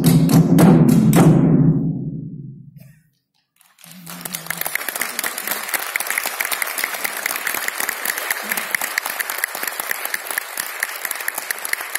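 Japanese taiko drums strike a last run of heavy beats, about four a second, then stop about a second in and ring out, the boom dying away over the next second or two. After a moment of hush, audience applause starts about four seconds in and keeps going.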